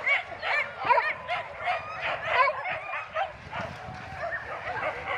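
A large pack of hunting dogs barking and yelping at once, many short calls overlapping several times a second.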